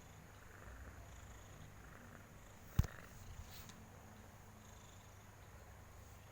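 Domestic cat purring, a low steady rumble, the sound of a contented cat. One sharp knock about three seconds in, with a couple of faint clicks just after.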